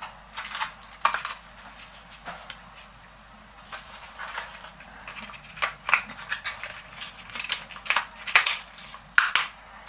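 Irregular clicks, taps and scrapes from handling a camcorder and the tripod mount shoe fitted to its base.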